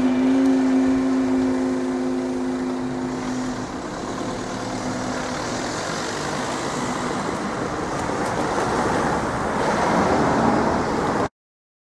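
A level crossing barrier mechanism hums steadily as the barriers rise, fading out after a few seconds. Then road traffic drives over the crossing, with a car passing close near the end. The sound cuts off abruptly just before the end.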